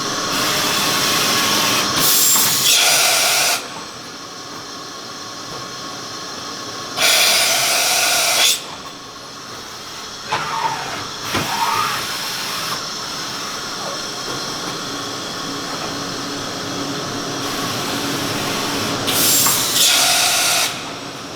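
Matsuura MC-660VG CNC vertical machining center running: a steady machine hum, with three loud hissing blasts of a second or two each and brief sliding changes in pitch in the middle.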